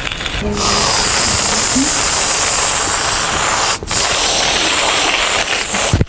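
A loud, steady hiss that starts about half a second in, drops out for a moment near the middle, then carries on and cuts off sharply at the end.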